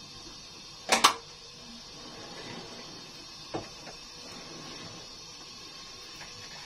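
A sharp double knock about a second in, then a lighter click a few seconds later, over a steady faint hiss.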